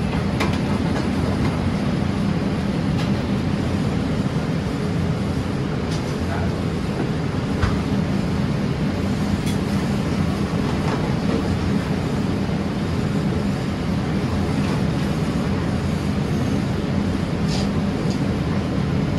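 Steady low rumble of a commercial kitchen's exhaust hood and lit gas range burners, with a few light clinks of tongs and pans.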